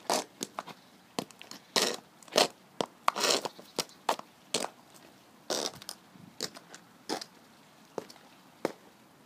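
Heels and lugged rubber soles of high block-heel platform ankle boots striking and scraping on a concrete path: irregular steps, with a longer drawn-out scrape about three seconds in.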